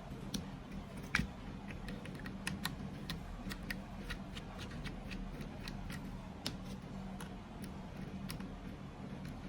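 Small screwdriver loosening the screws that hold a fusion splicer's push motor: scattered light metallic clicks and ticks, about one or two a second, over a steady low hum.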